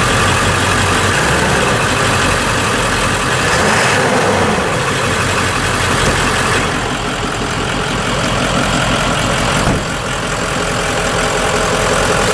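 A 2000 Ford F-250's 7.3-litre turbo diesel V8 idling steadily, dipping briefly about ten seconds in.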